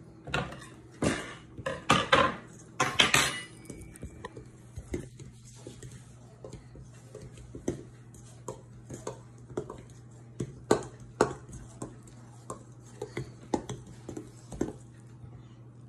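A utensil clattering and clinking against a stainless steel mixing bowl as chocolate cake mix is stirred by hand. It is loudest in the first few seconds, then turns to lighter, irregular clinks and scrapes.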